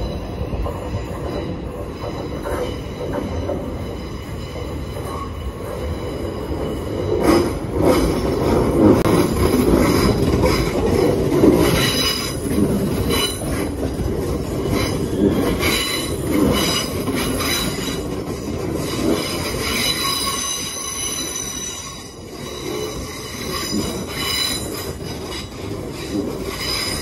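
ScotRail electric multiple unit rolling slowly into the platform, its wheels squealing with thin high tones and clicking over rail joints and points, loudest as the leading cars pass.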